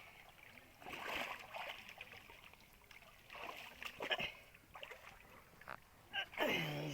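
Water sloshing and splashing in several short separate swishes, with a brief falling vocal sound near the end.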